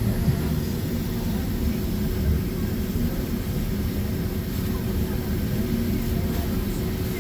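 Cabin noise of a Boeing 767-400ER taxiing after landing: a steady low rumble from the engines at taxi power and the rolling airframe, with a constant hum.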